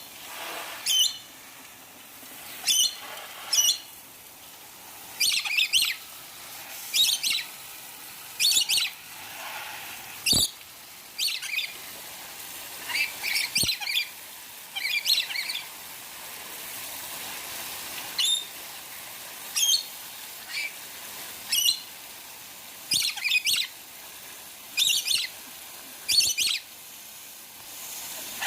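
Lorikeets giving short, shrill screeching calls, singly or in quick clusters, every second or two, with two brief knocks partway through.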